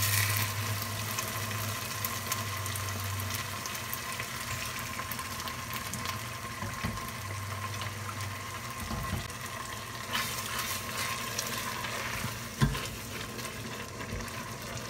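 Risotto sizzling and bubbling in a pot as hot vegetable broth is ladled in over the toasted arborio rice and stirred with a silicone spatula. One sharp knock of the utensil against the pot comes near the end.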